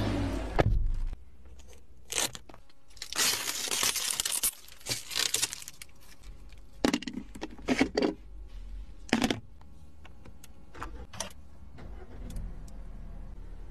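Handling noise inside a new car's cabin: crinkling of the plastic protective wrap on the seats and scattered clicks and knocks of interior trim being touched, over a low steady hum. The longest stretch of crinkling comes about three seconds in and lasts a couple of seconds.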